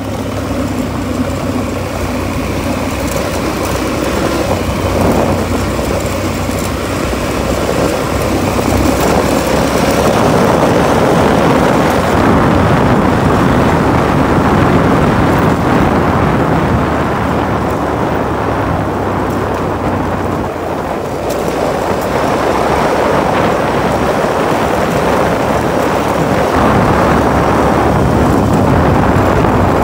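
Motorcycle running at a steady cruising speed on a gravel road, its engine partly buried under heavy wind rumble on the microphone.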